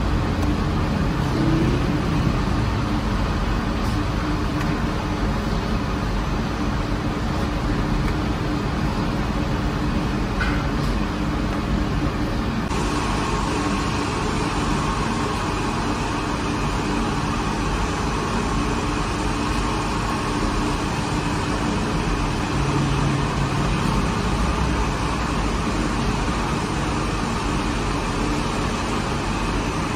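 Steady mechanical rumble and hum of a bakery's rotating deck oven running, with a brighter hiss from about thirteen seconds in.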